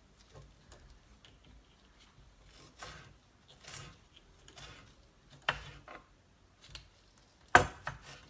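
Knife cutting bell pepper on a cutting board: a string of irregular knocks of the blade against the board, with the loudest knock about three-quarters of the way through.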